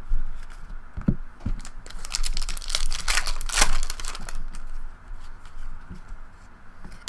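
Foil wrapper of a pack of football trading cards being torn open and crinkled, with a burst of crackling about two seconds in and a few light knocks and clicks from handling around it.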